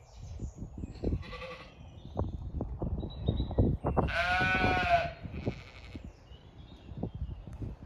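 Zwartbles lamb bleating: one loud, high call just under a second long about four seconds in, with fainter bleats about a second in and just after it. Short, dull thumps run through the first half.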